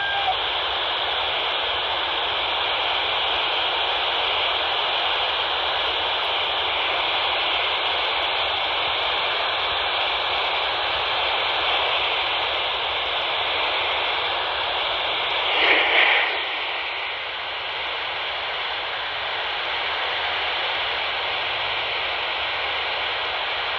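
Handheld VHF radio tuned to 157.450 MHz, its speaker giving a steady rushing, static-like noise, with a brief louder burst about two-thirds of the way through.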